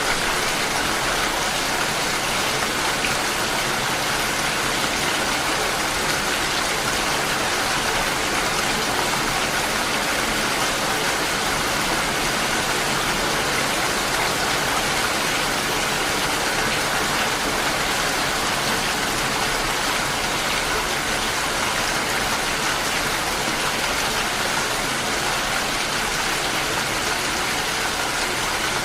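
Steady rain falling, an even hiss without pauses or distinct drops standing out.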